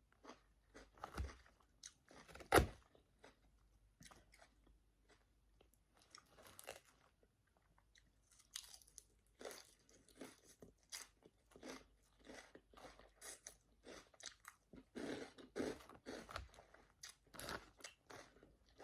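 A person chewing a mouthful of Caesar salad close to the microphone: irregular crisp crunches, very crunchy, with one loud crunch about two and a half seconds in and short pauses between bursts of chewing.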